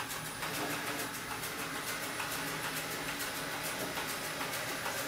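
ILIFE V7S Pro robot vacuum-mop running across a laminate floor in mopping mode, a steady mechanical whir.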